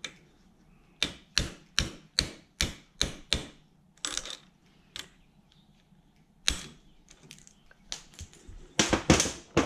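Steel ball-peen hammer tapping a socket to drive an idle stepper motor's rotor shaft out of its ball bearing held in a bearing separator: a quick run of seven sharp metallic blows about a second in, then a few spaced single taps. A louder clatter of metal parts near the end.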